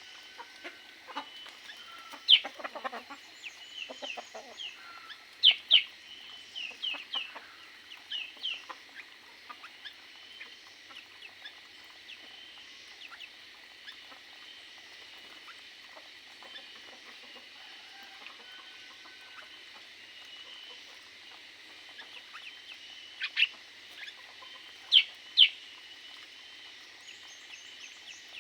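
Aviary birds calling: a steady high chatter with short, sharp calls on top, busiest in the first several seconds and again near the end, the loudest a few sharp calls about two, five and twenty-five seconds in.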